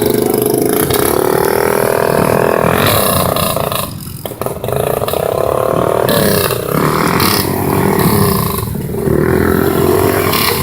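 ATV engine revving hard. Its pitch rises and falls as the throttle is worked, and it drops off briefly about four seconds in and again near nine seconds.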